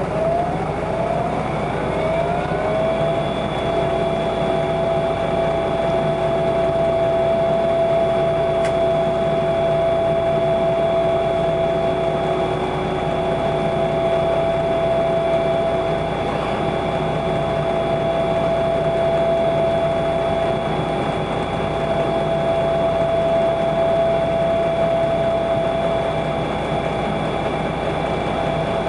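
Volvo B7RLE bus drivetrain with its ZF automatic gearbox, a whine rising in pitch over the first few seconds, then holding at a steady pitch over the engine's rumble. The gearbox is said to slip.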